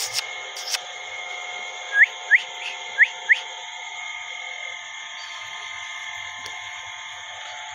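Four short, rising whistles in two quick pairs about a second apart, over a steady high drone of several held tones.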